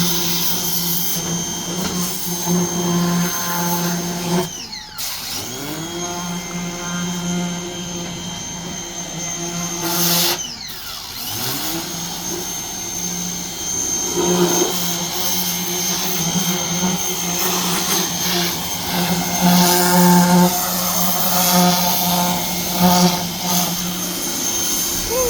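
Ryobi portable pressure washer's motor and pump running with a steady hum. It cuts out briefly twice and spins back up each time.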